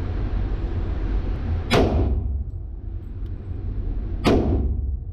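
Two shots from a Kimber 1911 Custom LW pistol in .45 ACP, fired about two and a half seconds apart. Each ends in a short echoing tail in the indoor range, over a steady low rumble.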